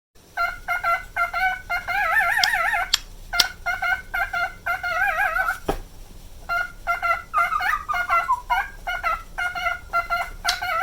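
Male cockatiel whistling its song as a string of short whistled notes, several of them held and wobbled in a fast vibrato. A few sharp clicks fall between the phrases.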